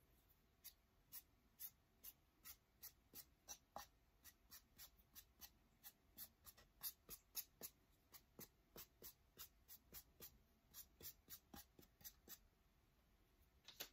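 Faint, quick strokes of a paintbrush dry-brushing white paint across a painted frame, about two or three strokes a second, stopping shortly before the end.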